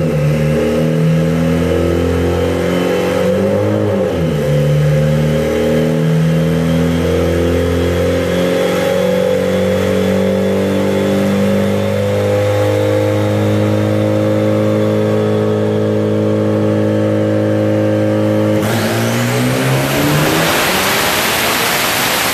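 Turbocharged K24 four-cylinder in a Honda Civic hatchback running on a chassis dynamometer, held at a steady engine speed in gear for about eighteen seconds. Near the end it goes to full throttle, much louder and rising in pitch, as the dyno pull begins.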